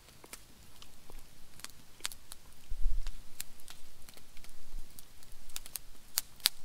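Wood campfire crackling with irregular sharp pops, and a low thump about three seconds in.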